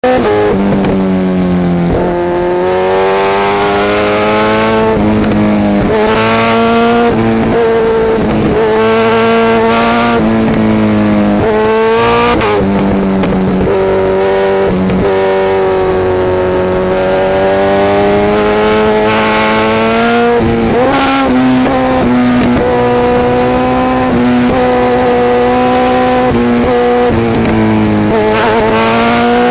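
Sport motorcycle engines running hard at high revs, the pitch swelling and sinking as the throttle is worked, with abrupt jumps in pitch every few seconds.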